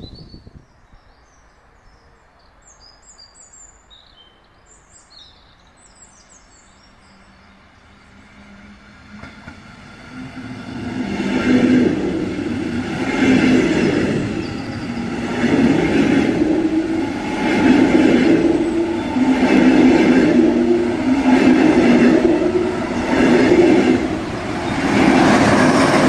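Birds chirp faintly at first. Then a DB double-deck regional express train, electric locomotive at the rear, comes closer with a rising rumble from about nine seconds in. It passes loudly with a heavy wheel beat roughly every two seconds as each coach's wheels go by.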